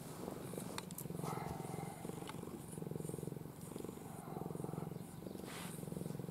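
Domestic cat purring steadily while being stroked on the back, the purr swelling and easing about every second and a half.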